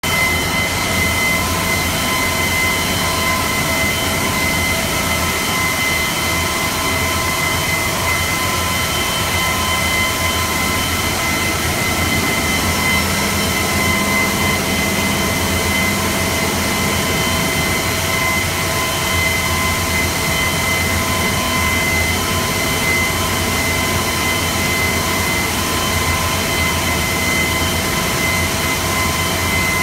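Stone-cutting machine running with a steady mechanical noise and several constant high whining tones over a low hum.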